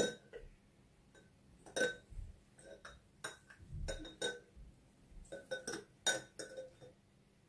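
Scattered light clinks and taps of a drinking glass being handled and turned against a plastic squeeze bottle as syrup is drizzled around its inside, with a couple of soft low thuds.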